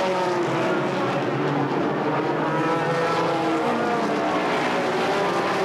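A pack of stock cars racing past with their V8 engines at full throttle. Several engine notes overlap, rising and falling in pitch as the cars go by.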